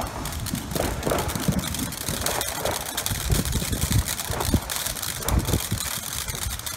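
Ground fountain firework spraying sparks: a steady hiss with dense, fine crackling, over irregular low rumbles.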